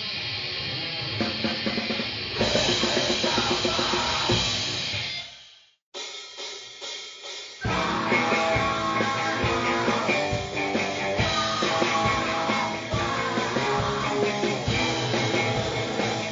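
Lo-fi grindcore/noise recording with distorted guitar, drums and shouted vocals. One track fades out about five and a half seconds in, and after a brief silence the next opens on guitar alone before the full band comes in about two seconds later.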